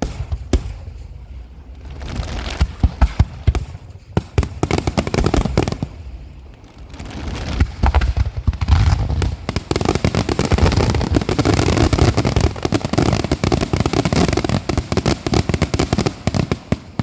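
Fireworks finale barrage: a rapid run of bangs and deep booms that builds, from about eight seconds in, into dense, continuous crackling, then cuts off near the end.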